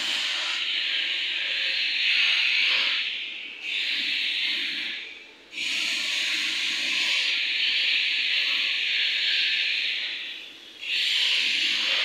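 Compressed air hissing in long bursts, dropping out briefly three times.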